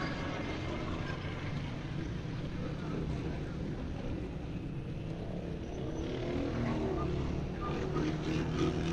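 Busy city street ambience: a steady low rumble of road traffic, growing a little louder in the last few seconds.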